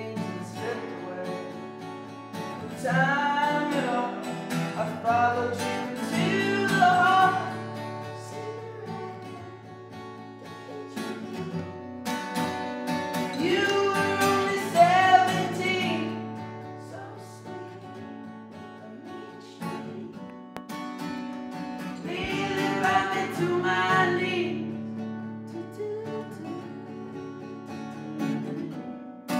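A man singing over his own strummed acoustic guitar in a tiled bathroom. The sung lines come in three stretches, with the guitar carrying on alone between them.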